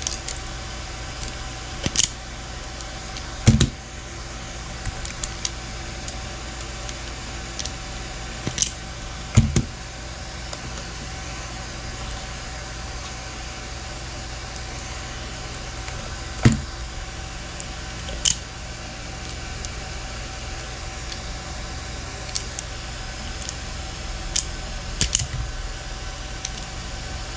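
Occasional sharp clicks and snips of a hand cutter stripping the insulation off the orange wire pair of a UTP network cable, a few seconds apart, over a steady fan hum.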